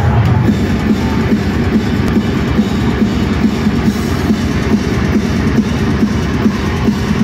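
Metal band playing live, heavy distorted guitars over fast, driving drums, heard loud from within the crowd of a concert hall.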